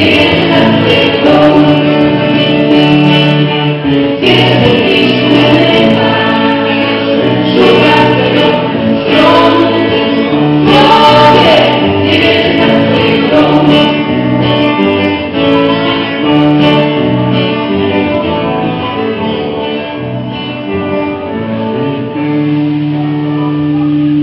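Live band: several women singing a song together in harmony over guitars and drums, ending on a long held chord near the end.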